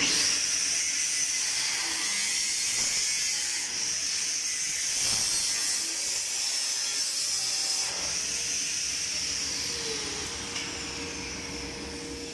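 Angle grinder grinding on a metal stair railing: a steady high whine with the rasp of the disc on metal, easing off briefly twice. Near the end the whine falls in pitch and the sound drops as the grinder winds down.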